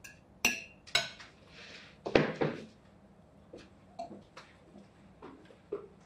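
Forks and knives clinking and scraping on dinner plates: two sharp clinks in the first second, a louder clatter about two seconds in, then lighter scattered clinks.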